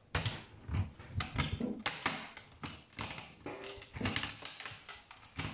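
Irregular clicks, knocks and scraping of a screwdriver prising a small transformer off a DVD player's power-supply circuit board, the metal tool working against the transformer, board and steel chassis.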